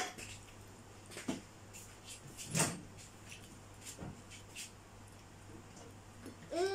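Sparse light knocks and clicks from things being handled on a dining table, the loudest about two and a half seconds in, over a faint steady hum. Near the end comes a short voice sound that rises and then falls in pitch.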